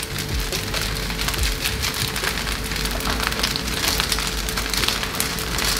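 Fried rice sizzling and crackling in a wok over a gas flame, a steady dense crackle with a faint steady hum underneath.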